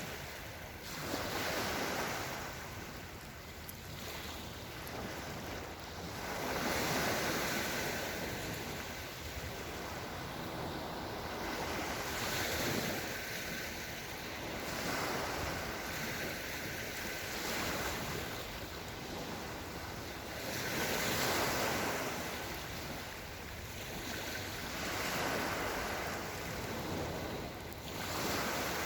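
Small Black Sea waves washing onto the shore, the surf swelling and falling away every few seconds.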